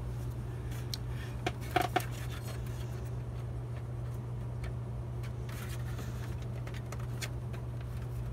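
Light clicks and metallic clinks of hands working at the drive bay inside an open computer tower, with two sharper clinks about two seconds in, over a steady low hum.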